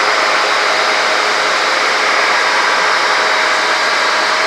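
Loud, steady engine and wind noise of a microlight aircraft in flight, raised because the aircraft has sped up.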